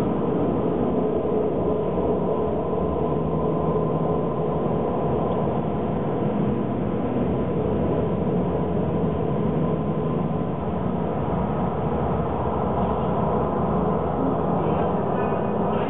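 The installation's soundtrack playing in the room: a steady, dense drone with a low rumble and several held tones.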